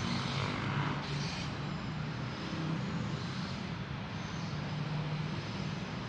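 KTM ETS electric multiple-unit train running past: a steady noise of wheels and motors over a low hum, swelling slightly every second or so.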